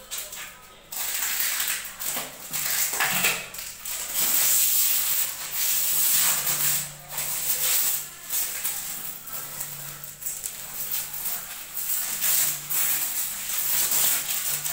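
Thin plastic protective film being peeled off a new ceramic toilet bowl and bunched up by hand, crinkling and rustling in uneven bursts.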